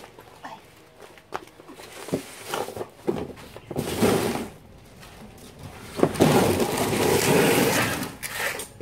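A large cardboard box being pulled open and handled. There are scattered knocks and short rustling scrapes of cardboard, then a longer loud scraping rustle about six seconds in that lasts a couple of seconds.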